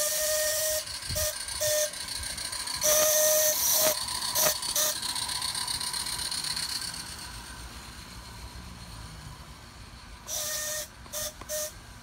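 Radio-controlled DJB steam whistle on a garden-railway locomotive. It blows one longer blast and two short toots, three times over: near the start, about three seconds in and again near the end. Each toot is a breathy, hissy whistle.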